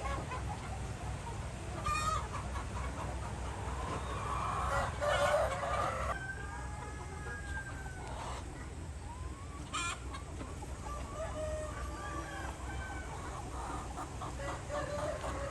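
A flock of chickens clucking and calling, with longer drawn-out calls like a rooster crowing, over a steady low rumble.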